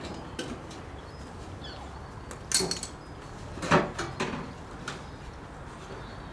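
Workshop knocks and clanks from hand tools and metal parts being handled on a car. There are five or six short sharp knocks, with the two loudest about two and a half and nearly four seconds in, over a steady low background.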